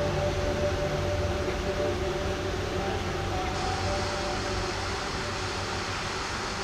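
Steady rushing noise of a waterfall plunging off a cliff into the sea, with faint steady tones above it. The high hiss grows brighter about three and a half seconds in.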